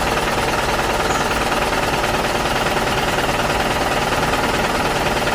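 Small toy tractor's motor running steadily with a fast, even mechanical rattle.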